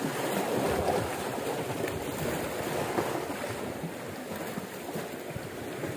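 Small sea waves washing against shoreline rocks, a steady rushing with wind on the microphone.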